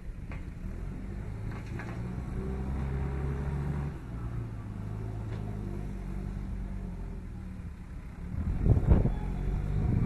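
A motor vehicle's engine running with a steady low hum, its pitch changing about four seconds in, and a louder rushing surge near the end.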